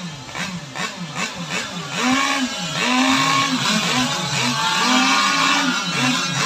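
Engines of radio-controlled racing boats running flat out. The high engine note swings up and down in pitch over and over, about twice a second, and grows louder about two seconds in.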